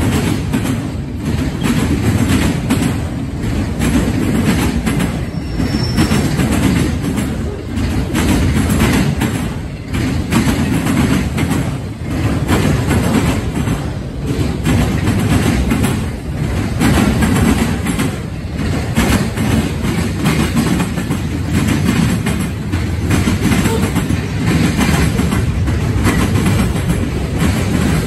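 Loud freight train cars rolling past close by, autorack cars and then hopper and tank cars, their steel wheels clattering on the rails. The noise swells and dips about every two seconds as each car goes by.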